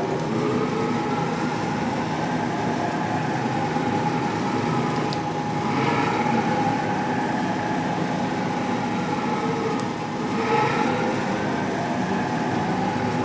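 Haas TM-1 toolroom mill's axis drives whining as the table is jogged, the pitch sweeping up and back down twice, over a steady machine hum.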